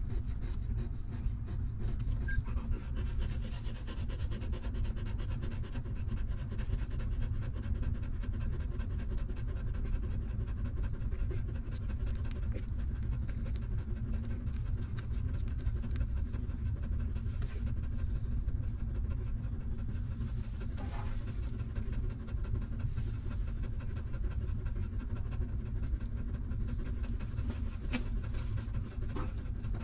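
Nursing mother dog panting steadily and rapidly, close by. A few brief sharp sounds come in the second half.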